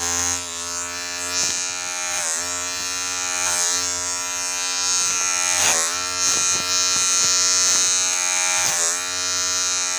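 Electric hair clipper buzzing steadily as it cuts hair, somewhat loud, its tone wavering and dipping briefly a few times as the blades pass through the hair.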